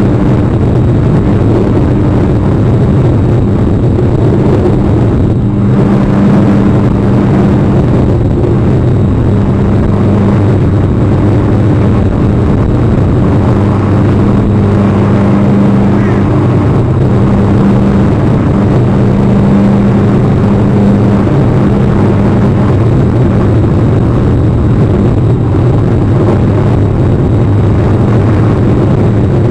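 Steady loud noise with a low, even hum underneath, unchanging throughout; nothing stands out from it.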